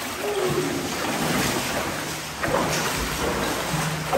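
Steady rush and slosh of water in a flooded cave passage as a caver wades through it, growing louder about two and a half seconds in.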